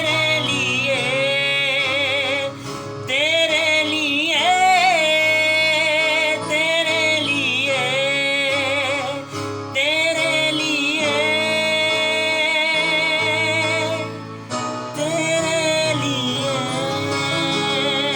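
A solo voice singing long wordless held notes with vibrato, in phrases a few seconds long, over steady instrumental accompaniment in an unplugged song performance.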